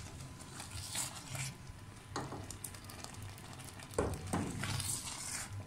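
Silicone spatula stirring thick, simmering firni in a non-stick pan, scraping through the pudding in irregular strokes; the loudest stroke comes about four seconds in.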